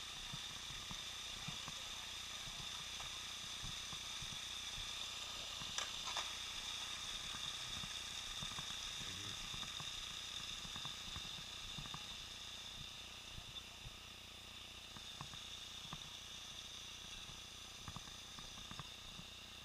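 Steady hiss with a faint high whine: the helmet camera's own recording noise, heard through its sealed underwater housing, which shuts out almost all outside sound. A few light knocks stand out, the loudest about six seconds in.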